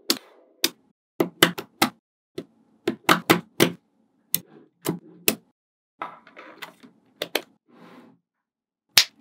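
Panels of small magnetic balls snapping together with sharp, irregular clicks as they are pressed into place as walls, with a soft rattling rub of the balls between the clicks. The clicks stop about a second before the end, then one last loud snap.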